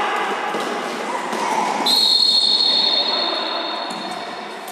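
Spectators shouting, then a referee's whistle blown in one long steady blast about two seconds in, lasting roughly two and a half seconds and fading out.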